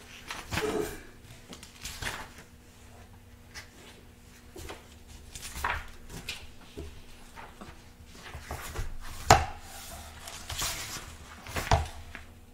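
Pages of a book being turned close to the microphone: several separate paper rustles, with a sharper knock against the wooden pulpit about nine seconds in.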